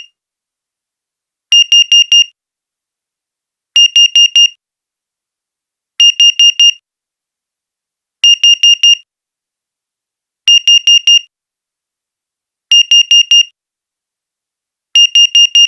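Digital alarm clock beeping: high-pitched groups of four quick beeps, one group about every two and a quarter seconds, with silence between. It is a wake-up alarm signalling the end of a rest period.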